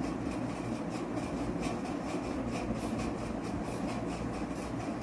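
Steady machine hum with a rushing noise, even throughout, with no distinct knocks or sprays standing out.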